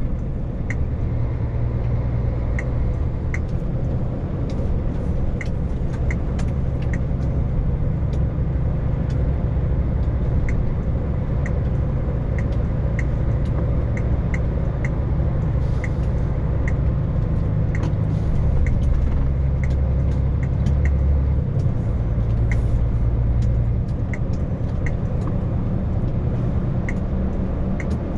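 Heavy lorry's diesel engine running under way, a steady low drone whose pitch steps up and down a few times, with scattered light ticks and rattles over it.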